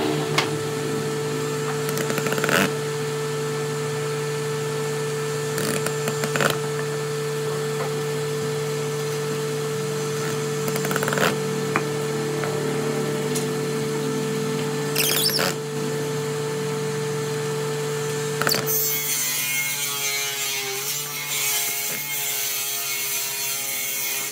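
Cordless drill driving screws into pine pallet wood, with a few sharp knocks as wooden pieces are set down and handled, then a long loud stretch of drilling from about three-quarters of the way through. A steady low hum runs underneath.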